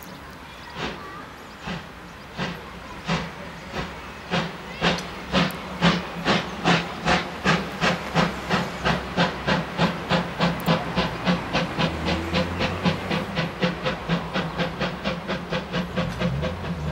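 Class 52 two-cylinder steam locomotive 52 1360-8 accelerating: its exhaust chuffs come faster and faster, from about one a second to about four a second, with steam hissing.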